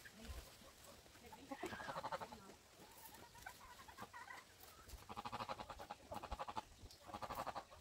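Farm animals calling: several drawn-out, wavering calls of about half a second each, one about two seconds in and three close together in the second half.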